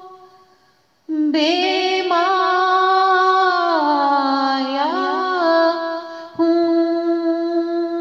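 A woman singing a naat, drawing out long, ornamented notes with no clear words. A held note fades away and the voice breaks off briefly about a second in, then comes back with a new long phrase that glides down and up in pitch.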